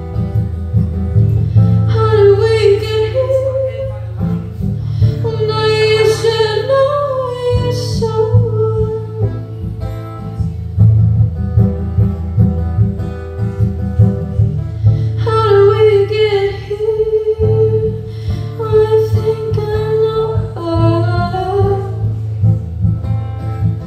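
A woman singing into a microphone over a backing track with guitar, in sung phrases of a few seconds with short pauses between them.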